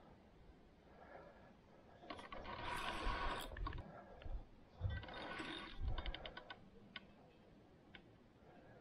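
Large carp spinning reel working while a hooked carp is being played: bursts of mechanical whirring and rapid ratcheting clicks from the reel, loudest about two to four seconds in and again from about five to six and a half seconds.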